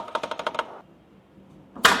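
A quick run of about ten sharp clicks over half a second, then a single loud, sharp knock near the end that rings on briefly.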